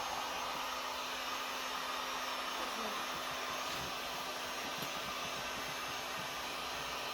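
Electric heat gun running steadily: an even blowing rush with a steady hum underneath.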